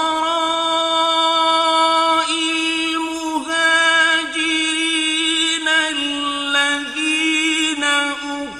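A man chanting Qur'anic recitation in Arabic, in a slow, melodic style. He holds one long drawn-out note with small ornamental turns of pitch.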